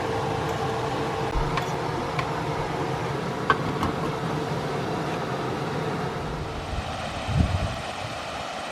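Steady running noise of a vehicle, with a faint held hum and a few light clicks, and a low thump about seven seconds in.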